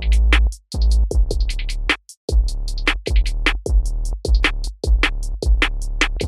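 Background music: a drum-machine beat of steady hi-hat ticks over a deep synth bass line, with short breaks in the bass.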